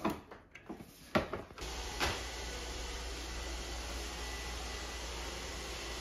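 A few clicks and knocks from handling the upturned robot vacuum, then, about one and a half seconds in, the steady whir and hum of the robot vacuum running across a hardwood floor.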